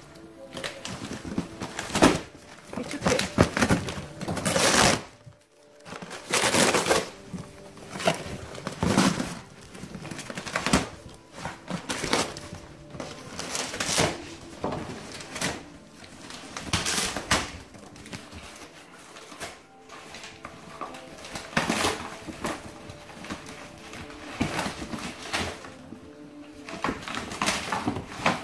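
Border collie puppies and an adult dog tearing and crunching a cardboard box, in irregular bursts of ripping and rustling with short pauses.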